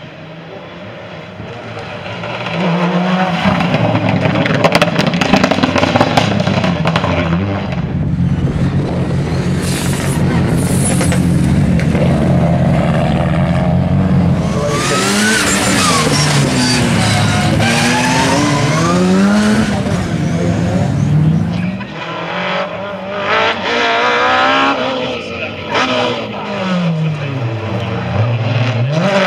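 Group A rally car engines running hard as cars pass on a stage, their pitch climbing and dropping again and again through gear changes, with tyre noise.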